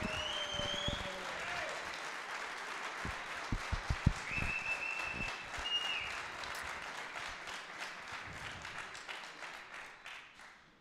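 Audience applauding, dying away toward the end. A few low thumps come about three to four seconds in, and a steady high tone is held for about two seconds near the middle.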